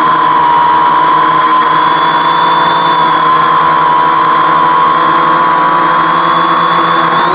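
Homemade 520 mm quadcopter's electric motors and propellers whining steadily in hover, the pitch drifting slightly up and down as the motors correct the hold.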